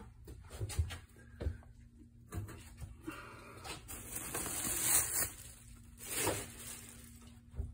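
Quiet handling noise: rustling and a few small knocks as a handheld phone camera is moved, over a faint steady electrical hum.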